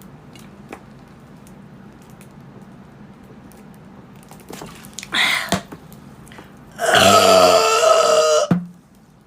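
A person lets out one long, loud belch, about a second and a half, with a clear low pitch, near the end. A short breathy sound comes a little before it.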